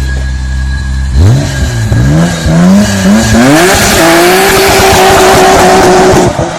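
Nissan Skyline GT-R's turbocharged RB-series straight-six under hard acceleration. A low rumble gives way about a second in to revs climbing and dropping in quick gear changes, then the engine holds a steady high-rev note with heavy rushing noise before cutting off suddenly near the end.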